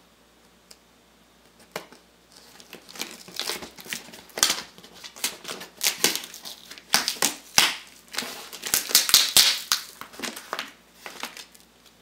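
Cardboard shipping box and its packing tape being torn open by hand: a few isolated clicks, then from about two seconds in a long irregular run of crinkling and ripping that stops shortly before the end.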